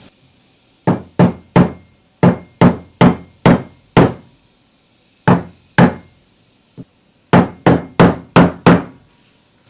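Hammer blows on a wooden block, driving a rear grease seal into a boat trailer wheel hub: about fifteen sharp knocks in quick runs of two to five, roughly three a second, with one light tap between runs.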